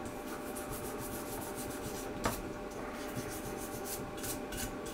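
Toothbrush scrubbing rust off a Commodore 128 RF modulator circuit board: quick, scratchy back-and-forth brushing strokes, several a second, with a single sharp click a little over two seconds in.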